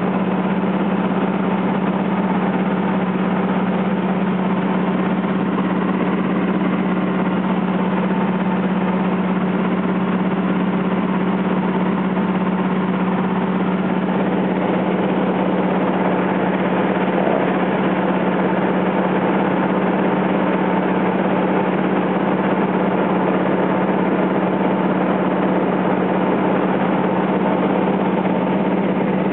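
Aircraft engine droning steadily in flight, a strong low hum that holds one pitch throughout.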